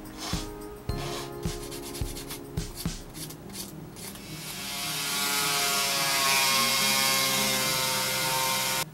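A hand file rasping across a small carved wooden part: short scraping strokes at first, then from about four seconds in a continuous, louder rasp that cuts off suddenly near the end.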